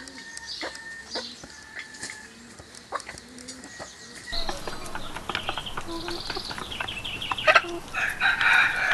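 Chicken clucking, starting about four seconds in after a quieter stretch with faint short calls, and getting busier towards the end.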